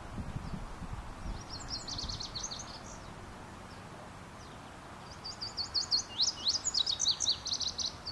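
Male indigo bunting singing two songs, each a quick run of high, sweet notes. The first is short, about a second and a half in; the second, longer one starts about five seconds in.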